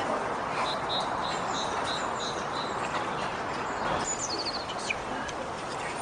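Small songbirds chirping: a run of short, evenly repeated high notes in the first half, then a quick falling series of notes about four seconds in, over a steady background hiss.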